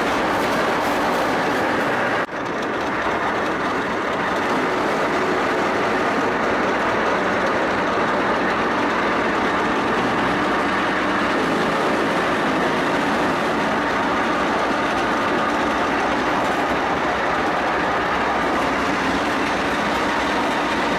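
ZSU-57-2 self-propelled anti-aircraft gun driving, heard from on top of the vehicle: its V-54 V12 diesel running and its steel tracks clattering in a steady, dense noise, broken only by a brief drop about two seconds in.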